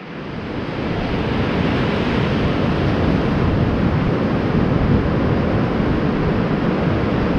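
Ocean surf breaking and washing up the beach, mixed with wind rushing on the microphone: a steady noise that swells up over the first second.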